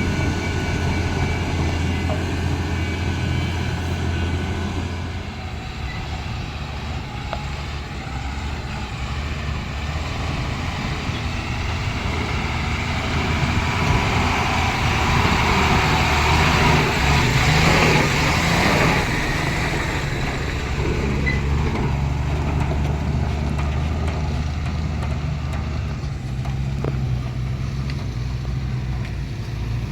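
Heavy diesel engine of earth-moving machinery running steadily, its pitch shifting a couple of times. A broad rushing noise swells over it, loudest about eighteen seconds in, then dies away.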